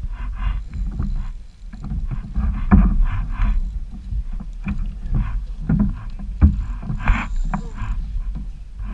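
Kayak on choppy water: water splashing and slapping against the hull, with wind rumbling on the microphone and a few sharp knocks against the boat.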